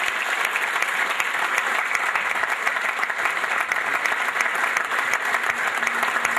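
Audience applauding steadily: many hands clapping together in a large hall.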